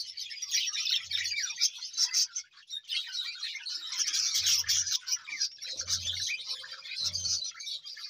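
A flock of budgerigars chattering and chirping all at once, many birds overlapping in a continuous high twittering, with a few soft low bumps underneath.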